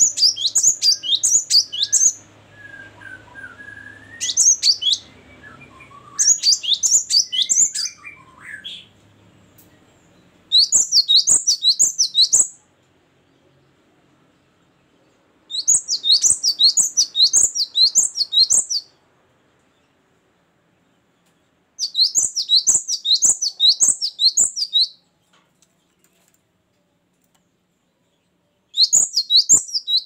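Caged cinereous tit singing: bursts of fast, high notes, each phrase repeating one down-slurred note two to three seconds at a time, with pauses of a few seconds between phrases. In the first several seconds, fainter, lower chirps from another bird sound between the phrases.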